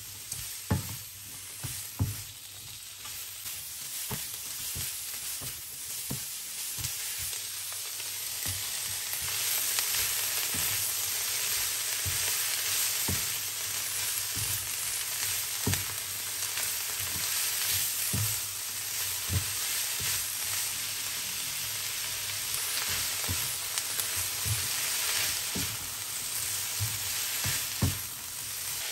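Shredded vegetables sizzling as they are stir-fried in a wok, with a steady frying hiss that gets louder about eight seconds in. The spatula knocks and scrapes against the pan every second or two as the vegetables are tossed.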